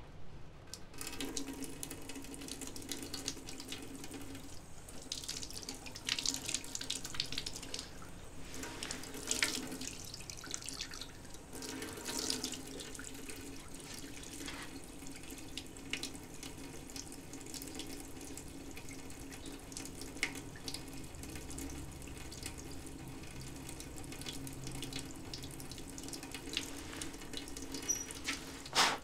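Water running and splashing in a basin, with a few louder splashes in the first half. A brief sharp sound right at the end.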